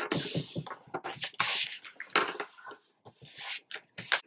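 Hands pressing and rubbing patterned paper flat over a chipboard album cover: a series of short, dry paper rustles and rubs with brief gaps between them.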